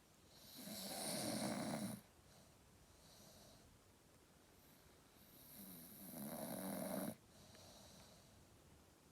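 Staffordshire bull terrier snoring in its sleep: two long snores, each swelling and then cutting off sharply, with quieter breaths out between them.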